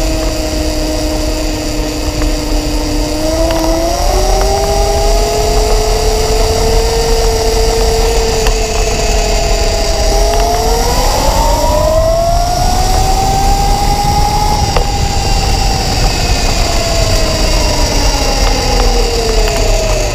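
GoPed PPV electric scooter's Torkinator motor whining under way, its pitch rising in steps with speed, peaking about two-thirds of the way through, then falling as it slows, over a low rumble of tyres on paving.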